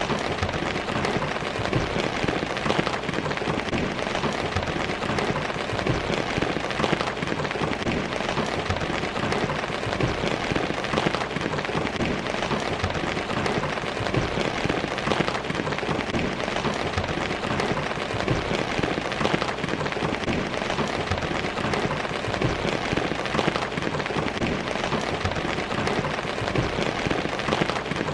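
Steady rainfall, a dense patter of many drops hitting surfaces.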